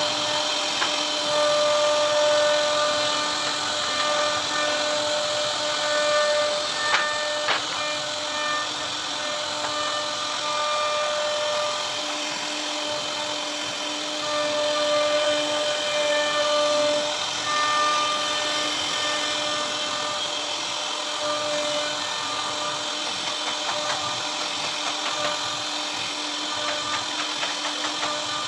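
CNC router spindle carving a relief pattern into a wooden door panel: a steady whine over the rough noise of the bit cutting wood, with a couple of sharp ticks about seven seconds in.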